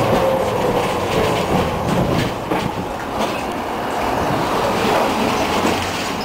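Electric tram running on its rails, heard from inside the car: a steady rumble of steel wheels on the track, broken by clicks from the rail joints. A faint falling whine fades out in the first second.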